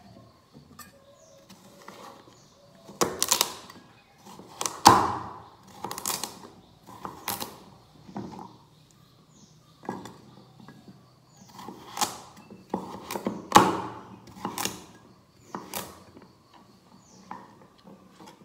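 A cleaver chopping pumpkin slices into chunks on a wooden chopping board. About a dozen irregular chops as the blade cuts through the firm flesh and strikes the board, a few of them much louder than the rest.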